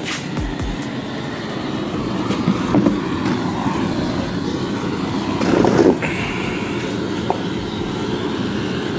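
LPG gas burner running with a steady rushing noise as it singes the hair off a slaughtered pig's skin, swelling louder for about half a second a little past the middle.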